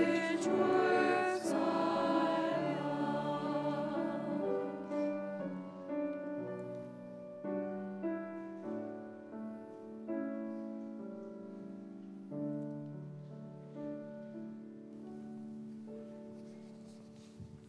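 Church choir singing with grand piano accompaniment; the voices end about four seconds in and the piano plays on alone, slow notes dying away and getting softer toward the end.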